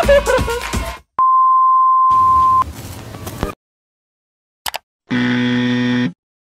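After a second of music, a steady electronic beep sounds for about a second and a half. A click follows, then a one-second low buzzer tone that cuts off abruptly: sound effects of an animated share-icon bumper.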